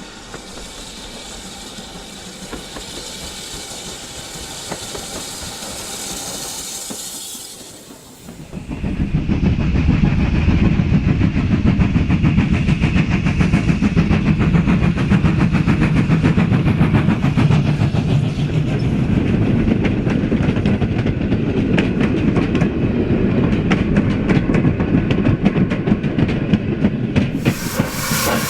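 OO gauge model train running on its track: a quieter hiss at first, then from about eight seconds in a loud rumble with rapid clicking of wheels over the rails as it runs close. Near the end, evenly spaced beats with steam hiss start up.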